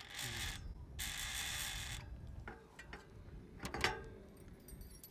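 Bicycle freehub ratchet (Industry 9 Hydra hub) buzzing as the wheel is spun, in two spells of about a second each, followed by a few sharp mechanical clicks, the loudest near the end.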